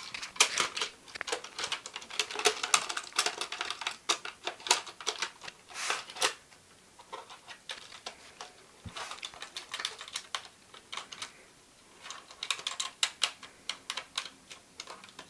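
Irregular clusters of sharp plastic clicks, taps and rattles as parts of a plastic airsoft rifle are handled and fitted together, with short quieter gaps between the clusters.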